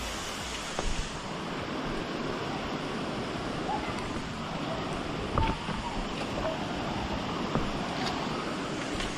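Steady rushing of a waterfall, with a few brief knocks along the way.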